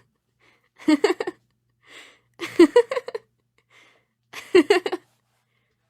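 A young woman laughing in three short bursts of giggles, with a quick breath in between them.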